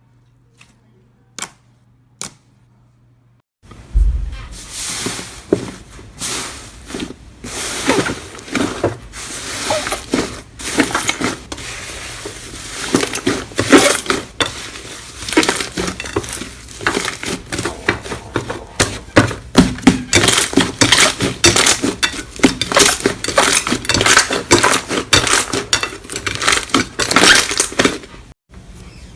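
Crunchy slime being squeezed and pressed in the hands: dense crackling and crunching, many sharp small cracks close together, starting a few seconds in after two single clicks.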